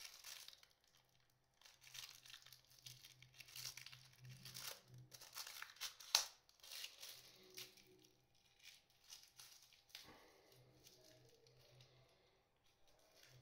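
Faint crinkling and tearing of plastic packaging being handled and opened, with a sharp click about six seconds in.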